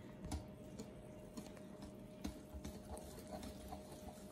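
Metal balloon whisk stirring pancake batter in a ceramic bowl: faint, irregular light clicks of the wires against the bowl, with soft low thumps.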